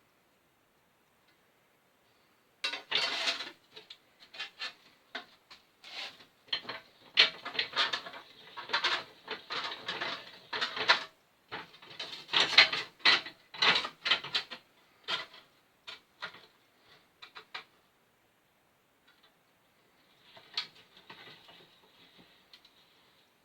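Sheet steel being worked by hand to shape a car repair panel: a run of irregular metallic knocks and taps, some in quick flurries, stopping for a couple of seconds near the end and then a few softer taps.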